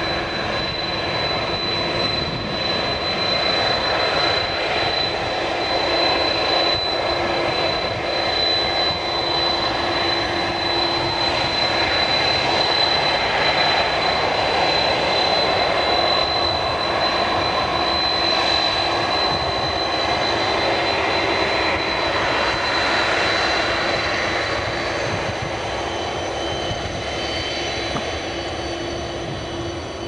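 Boeing 747-400's GE CF6-80C2 turbofan engines running at low taxi power as the jet rolls past: a steady high-pitched whine over a broad rushing roar. It grows a little louder midway and eases near the end.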